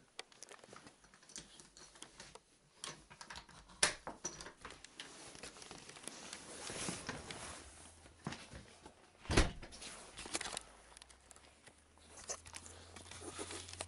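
A house door being unlocked and opened, with scattered clicks, knocks and rustling from handling. One loud thump comes about nine seconds in.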